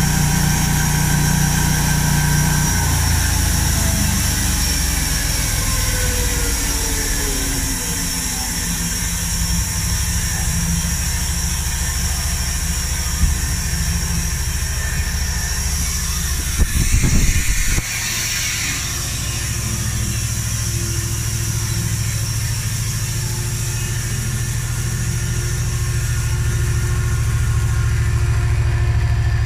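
Large band sawmill running with a steady machine hum. A whine falls in pitch a few seconds in, and a brief louder clatter comes about halfway through.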